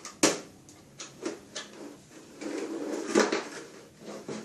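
A few sharp knocks and clatters of hard objects being handled. The loudest comes just after the start and another about three seconds in, with a rattling stretch around it.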